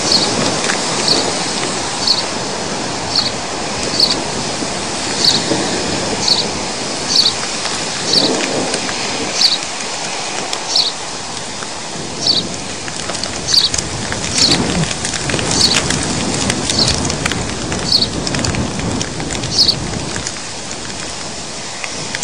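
Heavy rain and hail falling during a thunderstorm, a steady loud rush. A short, high chirp repeats about once a second over it.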